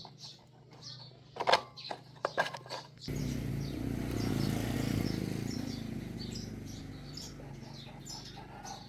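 Small birds chirping repeatedly, with a few sharp knocks in the first seconds. About three seconds in, a low rushing noise starts suddenly, swells and then slowly fades; it is the loudest sound here.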